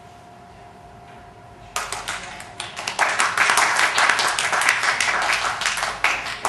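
Audience applauding: a quiet room with a faint steady hum, then clapping breaks out about two seconds in and swells to full applause a second later.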